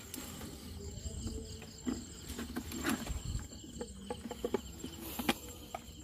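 Night insects chirping in a steady, evenly repeating high trill, with scattered light clicks and knocks.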